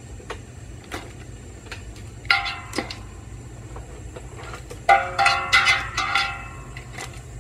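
Large stainless steel stockpot clanging and ringing as live blue crabs are dropped in and knock against its side and rim. There is a short run of ringing clangs about two and a half seconds in and a louder, longer run about five seconds in, over a steady low rumble.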